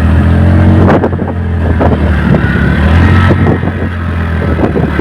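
Motorcycle engine running steadily under way, a loud, even low drone with irregular short knocks over it.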